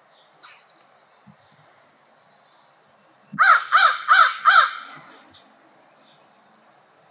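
Crow cawing four times in quick succession, loud and hoarse, about three and a half seconds in. A few faint high chirps come earlier.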